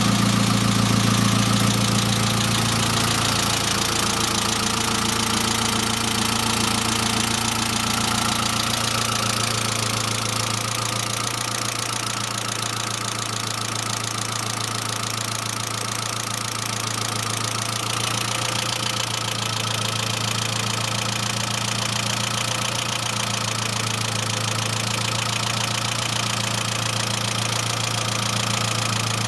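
Saab 900 engine idling with an incessant, rapid ticking from the valve lifters after an engine and head rebuild. The uploader takes this ticking as a sign of low oil pressure and suspects a sticking oil pressure relief valve.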